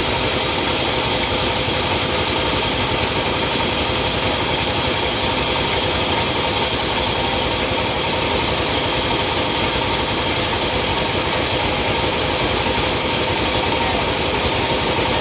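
Sawmill saw machinery running steadily: a constant mechanical hum with a steady high whine, unchanging in level.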